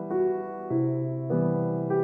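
Background piano music, a new note or chord sounding about every half second.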